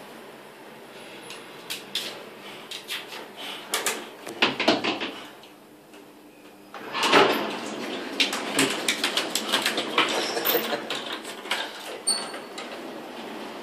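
Irregular clicking and scraping of a frightened miniature schnauzer's claws scrabbling on a hard elevator floor, with a quiet gap midway and busy clattering through the second half.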